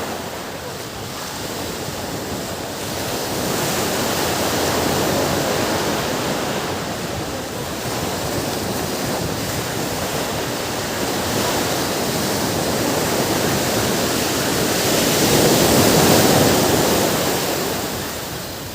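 Ocean surf washing onto a beach, a steady rush of waves that swells and eases, loudest about sixteen seconds in, then falling away.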